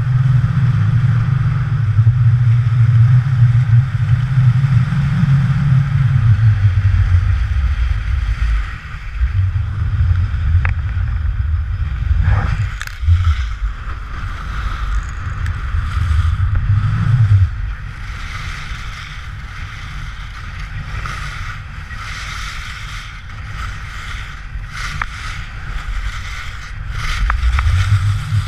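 Wind buffeting an action camera's microphone on a pole during a downhill ski run, with skis hissing and scraping over the snow and a few clicks. The wind rumble is heavy at first, drops off about two-thirds of the way through and builds again near the end.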